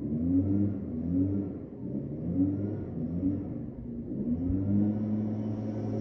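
Leaf blower running outside, its pitch rising and falling repeatedly as it is revved, then settling into a steady drone about four and a half seconds in.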